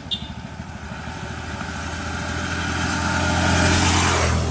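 Auto-rickshaw's small engine driving up close, growing louder to a peak about four seconds in with a rush of passing noise, then dropping away. A sharp click sounds just after the start.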